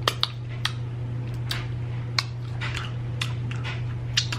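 Eating fried chicken close to the microphone: scattered sharp crunches and mouth clicks at irregular moments, over a steady low hum.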